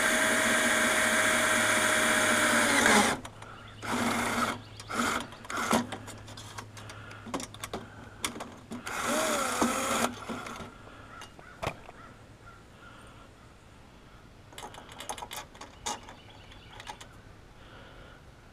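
A cordless drill runs steadily under pressure for about three seconds and then stops abruptly. Short, quieter bursts, clicks and tool handling follow.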